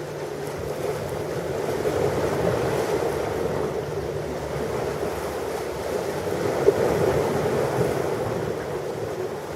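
Ocean surf: waves breaking and washing in a steady rush that swells about two seconds in, swells again around seven seconds, then eases off near the end.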